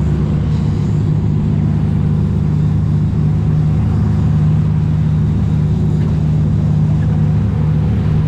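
Sport fishing boat's engines running steadily, a loud, even low drone.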